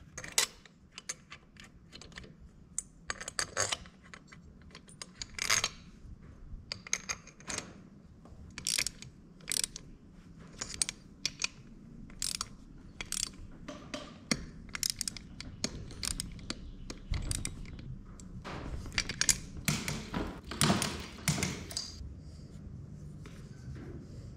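Hand tools and metal parts of a Predator 212 small engine clicking and clinking during assembly of the cylinder head and valvetrain: scattered sharp metallic clicks, busiest about twenty seconds in.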